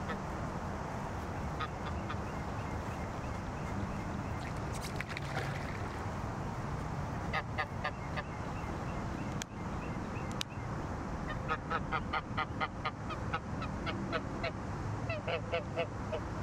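Domestic goose calling in quick runs of short honks, several a second, starting about halfway through and coming in bursts, over a steady low background rumble. Two sharp clicks near the middle.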